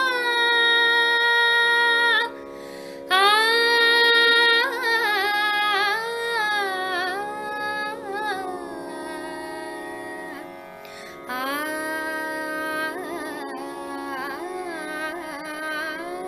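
A woman singing long, held notes with slides and fine ornaments over a steady drone, in an Indian classical style, pausing briefly for breath twice.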